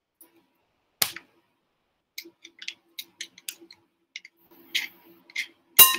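Metal measuring spoon scraping and clicking inside a jar of solid coconut oil while scooping out a tablespoon: a sharp click about a second in, then a run of short irregular clicks and scrapes, and a louder ringing clink near the end.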